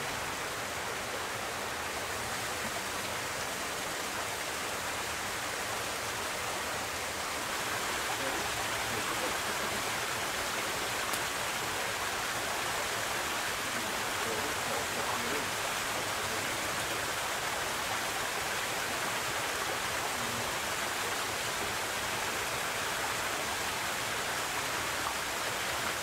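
Small waterfall and stream splashing over rocks, a steady rushing of water that grows a little louder about seven seconds in.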